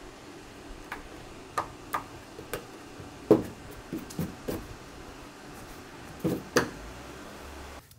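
Scattered light knocks and clinks of hard objects being handled, about ten in all, the loudest about three seconds in, over a steady faint hum.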